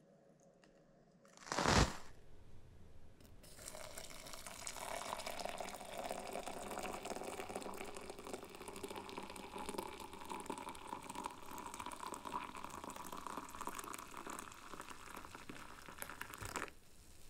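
Hot water poured in a steady stream into a ceramic mug, filling it and stopping abruptly near the end. Before the pour, about two seconds in, comes a single short loud thud.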